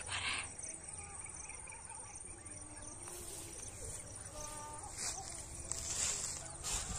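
Rural outdoor ambience: faint bird calls over a low rumble of wind on the microphone, with a few brief bursts of noise in the second half.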